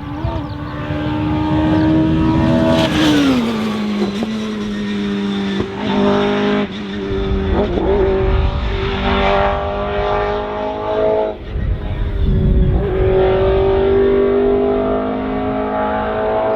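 Rally car engine at high revs, lifting and changing gear several times: the pitch drops about three seconds in, then climbs again between short breaks.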